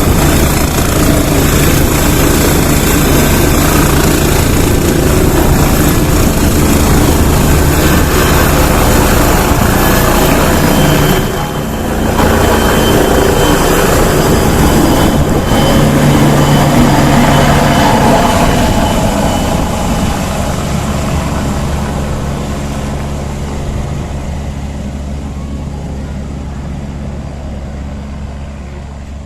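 Helicopter rotor and engine running loud and steady, with a brief dip about eleven seconds in. The sound then fades steadily over the last ten seconds as the helicopter moves away after takeoff.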